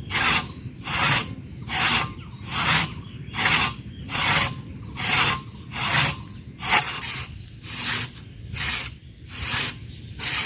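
Hand saw cutting through tree wood in steady, even strokes, a rasping stroke roughly every second.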